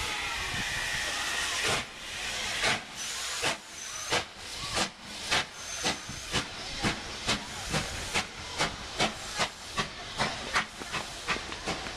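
LMS Stanier 'Black Five' 4-6-0 steam locomotive pulling away: a steady hiss of steam for the first couple of seconds, then sharp exhaust chuffs from the chimney, slow at first and quickening to two or three a second as it gathers speed.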